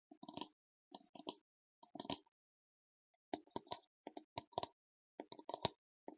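Gloves handled close to the microphone: short bursts of crinkly rubbing and snapping, each a quick cluster of clicks, separated by silent gaps, with a longer pause of about a second near the middle.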